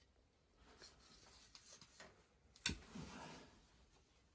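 Near silence with faint handling noises of a steel knife blank: light rubbing and small ticks, and one sharp click about two and a half seconds in.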